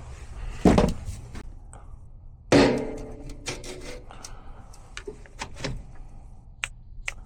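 Metal banging and clattering, as of a sheet-metal equipment access panel being handled: two loud bangs, about a second in and about two and a half seconds in, the second ringing briefly, then lighter clicks and knocks.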